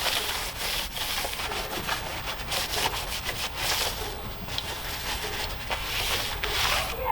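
Sandpaper rubbed over a part in quick, irregular scratchy strokes, smoothing blemishes to prepare it for paint.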